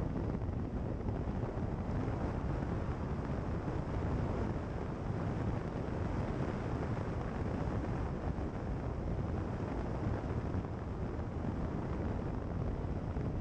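Steady wind buffeting the microphone of a car-mounted camera, mixed with the low rumble of a car driving along a gravel road.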